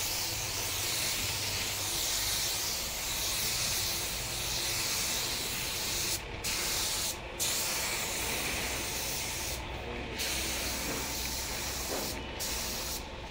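Compressed-air gravity-feed spray gun hissing steadily as it sprays paint, with several brief breaks in the second half where the trigger is let go.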